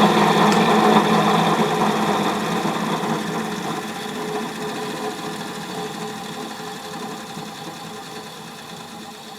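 The Hendey lathe's electric drive motor and its blower coasting down after being switched off, the hum fading steadily away; the dry-sounding bearings, which the owner thinks could use some grease.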